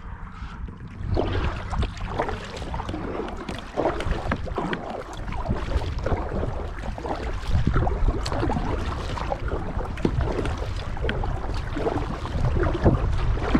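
Kayak paddle strokes dipping and splashing in the water, with irregular drips and swishes, over a steady low rumble of wind on the microphone.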